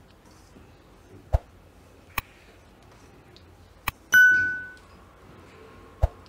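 Notification-bell ding sound effect from a subscribe-button overlay: one bright ding about four seconds in that rings and fades within about half a second, preceded by two sharp mouse-click effects. Two duller knocks also sound, about a second in and near the end.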